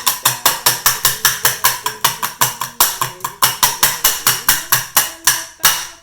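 An opened tin can being knocked rapidly and repeatedly, about five sharp metallic strikes a second, to shake the liquid out of plant-based tuna while draining it.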